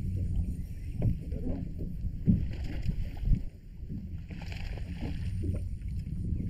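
Small fishing boat on open water: a steady low rumble of wind on the microphone and water against the hull, with two sharp knocks about a second apart.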